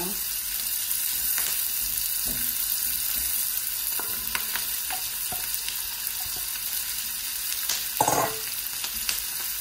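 Chopped onions sizzling in hot fat in a nonstick pan and being stirred with a silicone spatula, with scattered light knocks. Partway through, diced red and green bell peppers are tipped in from a metal bowl. A brief louder clatter comes about eight seconds in.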